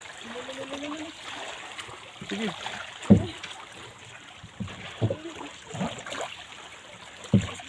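Water sloshing and splashing, with a steady wash of noise broken by sharp splashes or knocks, the loudest about three seconds in and again near the end.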